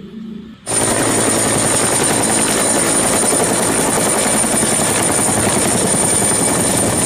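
Helicopter hovering: a steady, rapid rotor chop with a steady high-pitched whine over it, starting suddenly under a second in.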